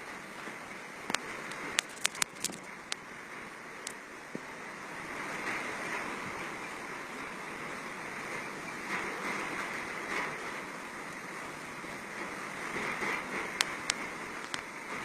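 Typhoon storm noise: a steady rushing of wind and water that swells from about five seconds in. A few sharp clicks or knocks sound early on and again near the end.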